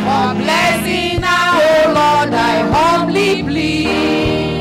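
Women's voices singing a gospel song through microphones over amplified instrumental backing with a steady low beat. The voices fall away about three seconds in, leaving the instruments playing on.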